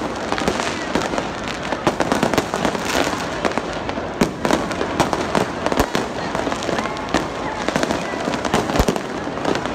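Hundreds of fireworks going off at once overhead, a dense, unbroken stream of overlapping bangs and pops with a few louder booms among them.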